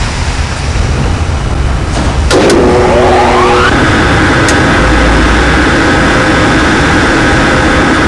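Three-phase electric motor started forward through a contactor: a steady hum and hiss, a click a little over two seconds in, then a whine rising over about a second and a half as the motor runs up to speed, settling into a steady running tone.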